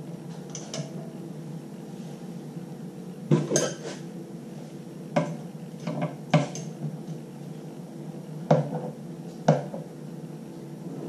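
Small metal parts of a vacuum filter's touch-bar assembly clinking and knocking as they are fitted by hand: about eight sharp clinks at uneven intervals, over a steady low hum.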